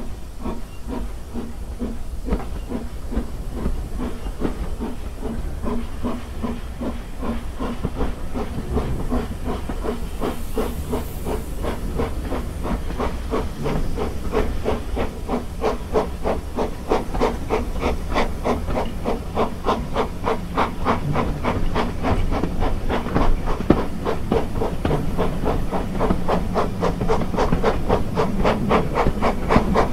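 Steam locomotive's exhaust beats heard from the carriages behind it, coming steadily quicker and a little louder as the engine works the train up to speed, over a steady low rumble of the train running.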